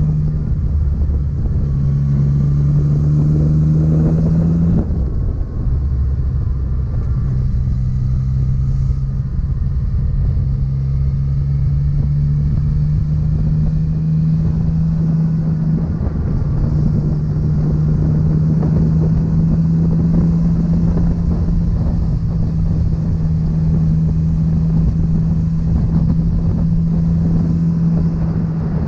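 Motorcycle engine heard from the rider's seat while cruising, running at a steady pitch. About five seconds in the note climbs, breaks off and settles lower, as with a gear change.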